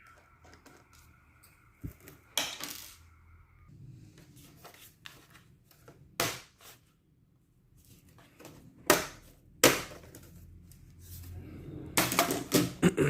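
Sharp clicks, taps and clatter of small hard plastic and metal parts, with a handful of louder knocks, from hands and tools working on a Dell Inspiron 15 3501 laptop as its bottom cover is opened.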